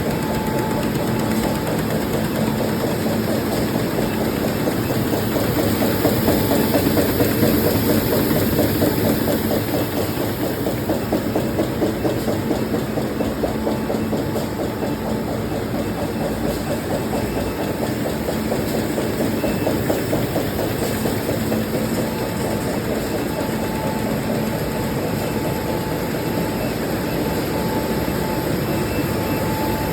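Two high-speed factory production machines running steadily together: a fast, even mechanical clatter over a constant hum.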